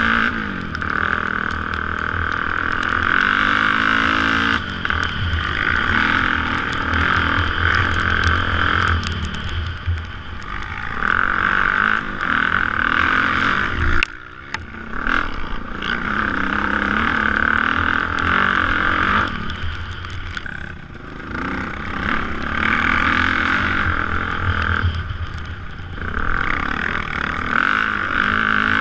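Single-cylinder four-stroke dirt bike engine running under throttle on a trail ride, its revs rising and falling as the rider pulls on and eases off several times, with a sudden sharp drop about halfway.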